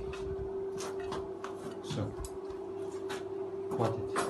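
Handling noise: scattered light clicks and a few short rubs or scrapes over a steady low hum.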